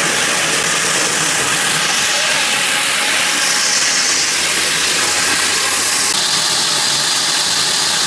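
HMC500 core drill with a 500 mm diamond core bit running steadily under load as it bores through, a constant hissing grind over the motor. It is working smoothly within its normal load, with the overload lamp barely lighting.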